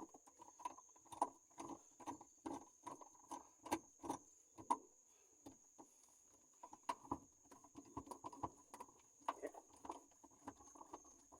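Irregular clicks and light knocks, a few a second with a short pause about halfway through, from a manual gear shifter being worked back and forth to test its two shift cables.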